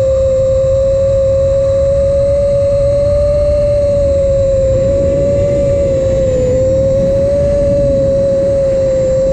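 Brushless motors and propellers of an iFlight Nazgul5 HD five-inch FPV quadcopter in flight: a steady, loud whine that wavers slightly in pitch and dips briefly about six and a half seconds in, over a low rushing noise.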